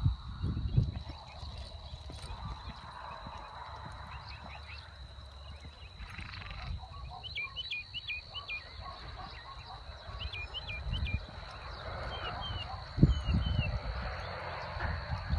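Dull thuds of a horse's hooves loping in arena sand, loudest near the end as it turns a barrel close by. Birds chirp in short runs in the middle, over a steady high whine.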